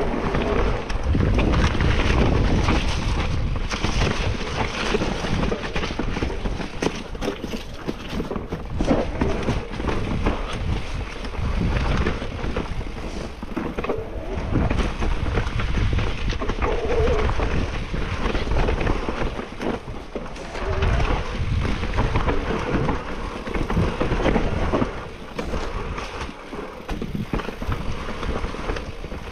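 Mountain bike riding a forest trail, with wind buffeting the camera microphone and tyres and frame rattling and knocking over the rough ground. It eases off somewhat near the end.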